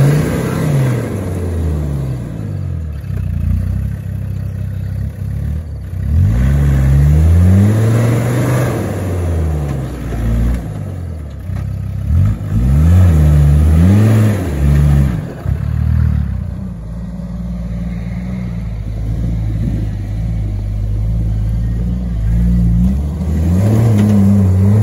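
Land Rover Defender 4x4 engine working in deep mud, revving up and down in several surges with steadier running between them.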